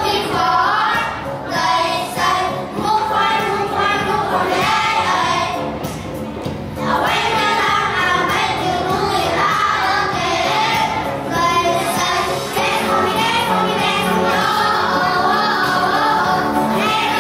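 A group of children singing into handheld microphones with a music track behind them.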